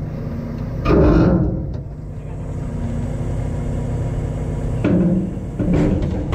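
Tow truck engine running steadily to drive the hydraulic recovery unit while its control levers are worked, with a few louder surges about a second in and near the end.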